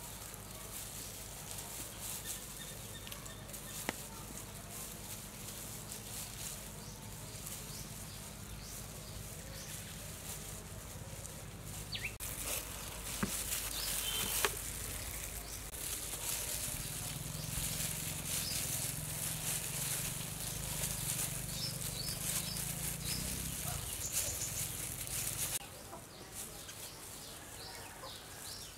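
Outdoor ambience under a steady low hum, with soft rustles and a few clicks from gloved hands handling boiled chicken legs in a plastic basket. A few short bird chirps come near the end.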